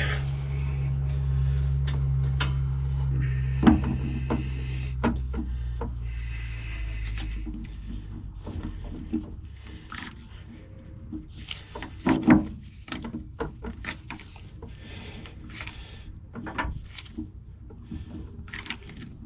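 An engine running steadily, dying away over the first seven seconds or so, then scattered metal clanks and knocks as parts of the feed mixer's drive are handled and fitted back together.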